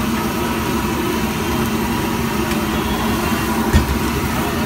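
Steady roar of a street-stall gas burner under an iron wok, with oil and egg sizzling in the wok, and one short knock about three-quarters of the way through.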